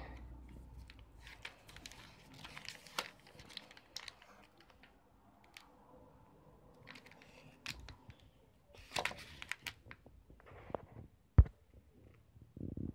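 Plastic candy-bar wrapper of a Mounds bar crinkling in bursts as it is handled and turned over, with one sharp knock near the end.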